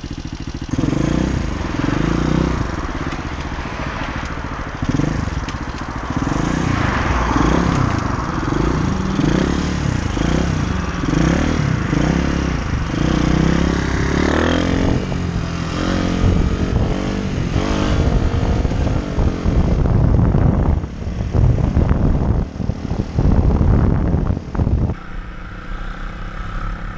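Small single-cylinder pit bike engine revving up and down as the bike accelerates along the road, with wind rushing over the helmet-mounted microphone. About 25 s in the sound switches abruptly to a steadier, even engine hum.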